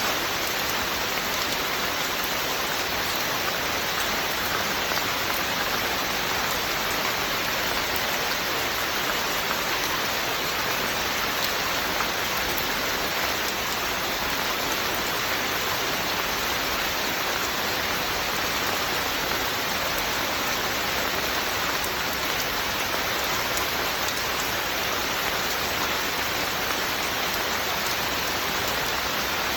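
Steady, even hiss of heavy rain falling on surfaces.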